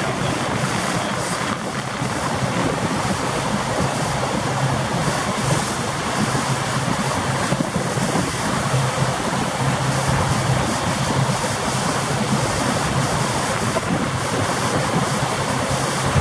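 Wind buffeting the microphone and water rushing past a moving pontoon boat, over the steady low hum of its motor.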